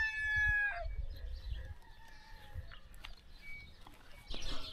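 A rooster crowing, the long held end of its crow cutting off under a second in, followed by faint scattered farmyard calls.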